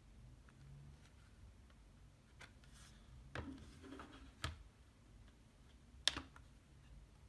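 Faint clicks and rubs of a plastic CD jewel case being opened, with two stronger clicks in the middle. Then comes one sharp plastic click about six seconds in, as the disc is pressed off its centre hub.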